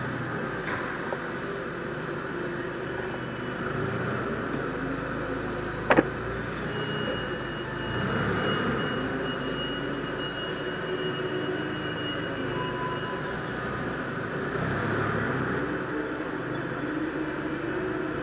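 Jungheinrich TFG 425 LPG forklift engine running as the truck drives slowly with a load, its note rising and falling a little. A sharp metallic clank comes about six seconds in, and a thin high whine holds for several seconds after it.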